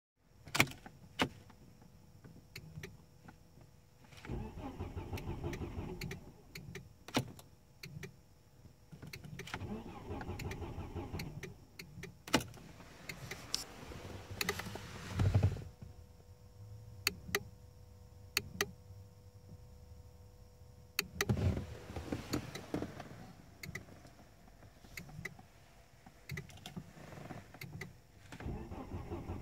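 2006 Volvo V50 T5's turbocharged five-cylinder engine cranking on the starter without catching, in about five separate tries of two to three seconds each. Sharp clicks come in between the tries. The engine will not start.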